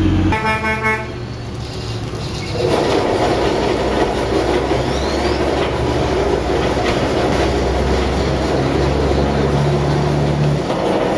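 A horn sounds briefly near the start, then a steady, loud mechanical rumble runs on.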